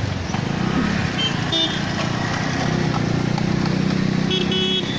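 Road traffic: a motor vehicle engine running steadily, with two short horn toots, one about a second and a half in and one near the end.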